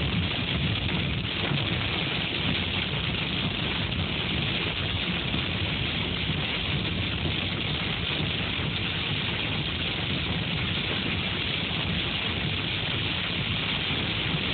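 Hail and heavy rain hitting a car's roof and windshield, heard from inside the car as a steady, dense hiss.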